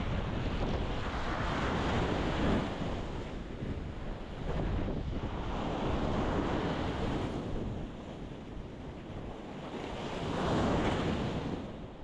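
Ocean waves breaking and washing on a rocky shore, the surf swelling three times, roughly every four seconds, over a steady low rumble of wind on the microphone.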